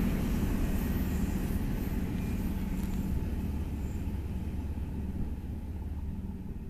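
Freight train of double-stack container cars rolling past on the track: a steady low rumble of wheels and cars, growing slowly fainter.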